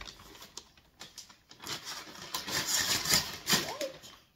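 Brown kraft-paper mailer crinkling and tearing as it is opened by hand and a cardboard box is slid out of it. The rustling is light at first and loudest in the second half.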